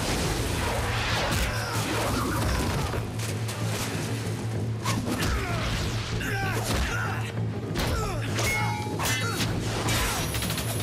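Action-film fight soundtrack: background music under the fight, with punches, impacts and swishes, and a crash.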